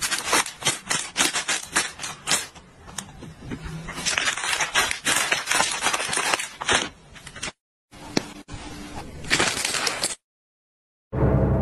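Plastic packaging crinkled and squeezed by hand: rapid, irregular crackling that runs for about seven and a half seconds, then two shorter bouts, stopping about a second before the end.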